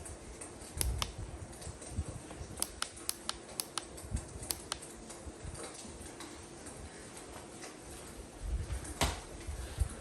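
Scattered sharp clicks and taps over a faint steady hum, with a few low thumps and a louder knock near the end.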